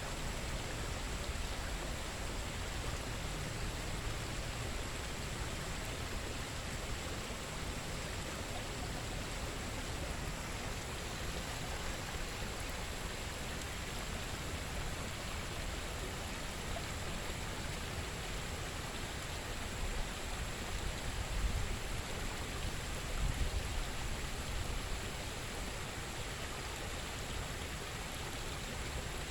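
Running water, a steady rush like a garden waterfall or stream, with a few brief low rumbles about two-thirds of the way through.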